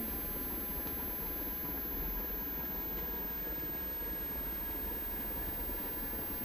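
Steady low rumble and hiss with two faint, unchanging high tones: a continuous machine-like background noise.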